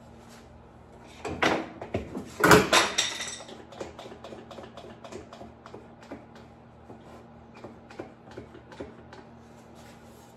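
A wooden board set down and pressed onto a 2x4 bending jig holding a heat-softened vinyl plank: two loud wooden knocks with scraping, about a second and a half and two and a half seconds in, then a run of light irregular clicks and rubs as it is shifted into place.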